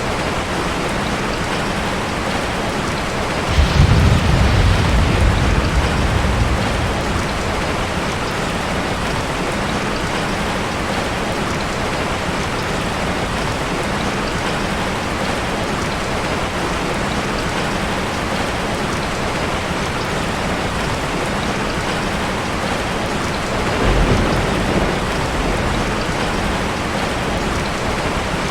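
Steady rain falling, with two low rumbles of thunder: a louder roll starting a few seconds in and fading out over about three seconds, and a shorter, softer one near the end.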